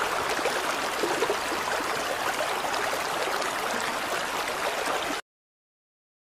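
Water running and splashing, a steady burbling hiss that cuts off suddenly about five seconds in, then silence.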